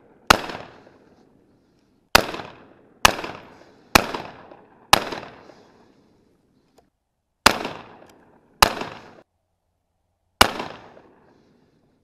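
A 12-gauge side-by-side double-barrel shotgun firing birdshot: eight sharp shots at uneven gaps over about ten seconds. Each shot has a short echo that dies away within about half a second.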